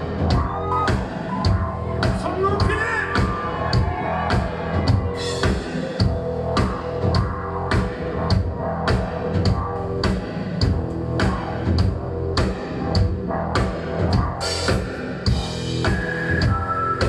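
Live rock band playing an instrumental passage: drum kit keeping a steady beat over electric guitar and bass.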